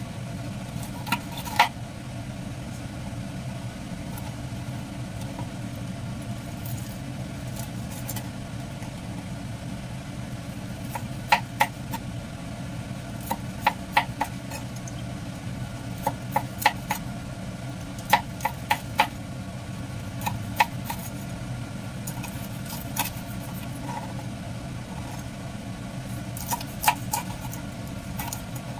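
A kitchen knife slicing a fried pork chop, its blade knocking on a plastic cutting board in short, sharp clicks. The clicks come one to four at a time with pauses between, over a steady low hum.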